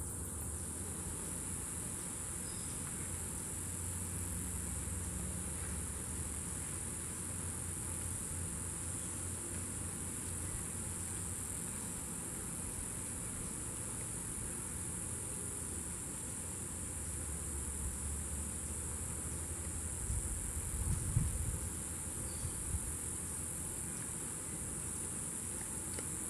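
Steady, high-pitched chorus of insects, over a low rumble, with a few louder low thumps around twenty to twenty-two seconds in.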